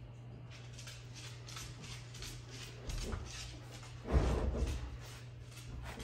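Heavy wooden mantel beam being pushed onto its wall mounts: soft rustling and scraping, a small knock about three seconds in, then a dull wooden knock and scrape about four seconds in.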